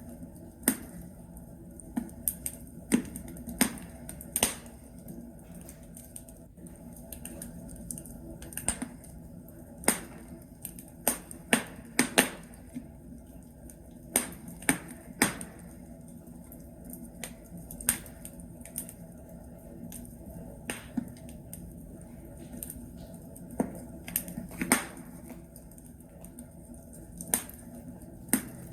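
Burning logs crackling in a fireplace: irregular sharp pops and snaps, a few a second, over a steady low rumble of the fire.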